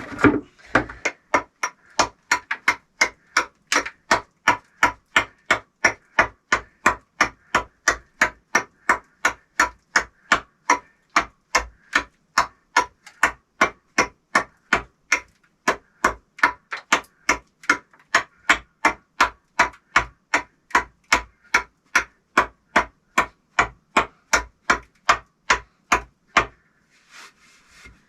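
Hammer blows struck at a steady rhythm of about two and a half a second, each with a short metallic ring, keeping up for nearly half a minute.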